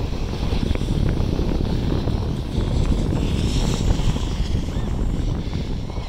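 Steady low rumble of wind buffeting the microphone, mixed with skis sliding over packed snow, as the skier holding it moves down the slope.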